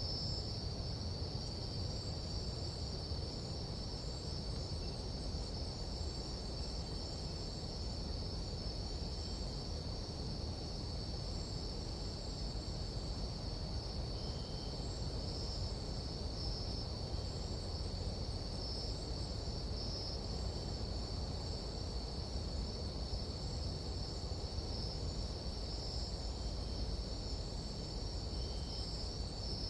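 Nighttime tropical-forest insect chorus: a steady, high-pitched, unbroken trilling of many insects, with a fainter pulsing trill above it. A low, steady noise runs underneath.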